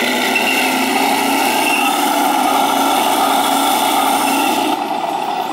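Radio-controlled King Tiger model tank driving under load as it struggles up a dirt slope, its drive running with a steady mechanical whine. The sound thins out abruptly near the end.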